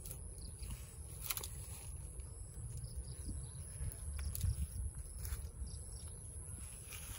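Outdoor ambience: a steady high insect drone over a low wind rumble on the microphone, with a few faint clicks.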